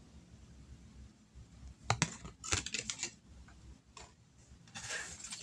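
Oracle cards being shuffled and handled: a series of short, dry clicks and slaps, growing into a denser run of card noise near the end.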